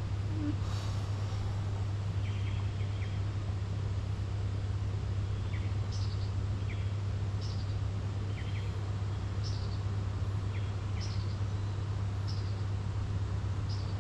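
A bird repeating short, high chirps about once a second over a steady low hum.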